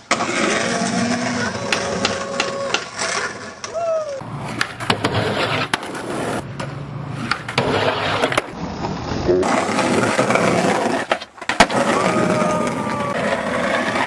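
Skateboard wheels rolling over rough concrete, with sharp clacks and knocks of the board and trucks. The sound changes abruptly a few times.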